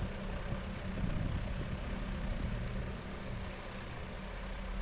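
Steady low hum and rumble with an even hiss, with a brief high-pitched chirp about a second in.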